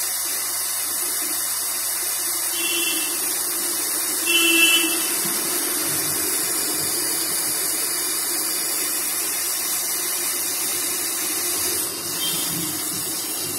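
Hot air rework gun blowing steadily with a constant hiss, heating a replacement audio IC so that its solder melts and the chip settles onto the phone's motherboard.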